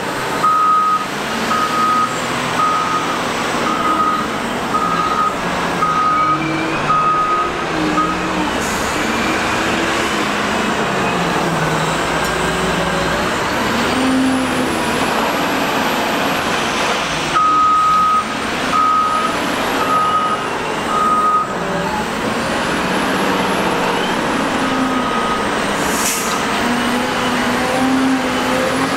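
Cat 972M wheel loader's Cat C13 diesel engine running, its revs rising and falling as it digs and carries sand. A reversing alarm beeps about one and a half times a second while the loader backs up, for the first several seconds and again briefly past the middle. A high whine rises and falls a few times in the second half.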